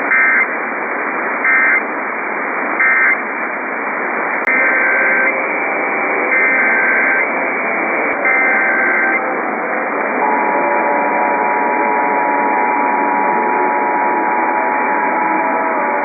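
Emergency Alert System signals received over the radio: three short shrill squawks of digital data (the end-of-message code), then three longer squawks (the header of the next alert), and about ten seconds in the steady two-tone EAS attention signal starts and holds on, all over a constant hiss of radio static.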